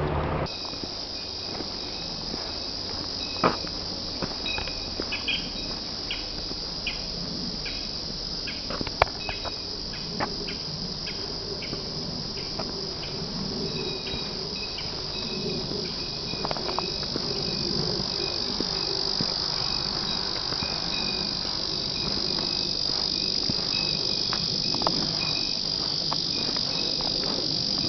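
Steady high-pitched insect chorus, with a second insect chirping in a quick repeating pattern over it. Scattered light taps and clicks sound mostly in the first half.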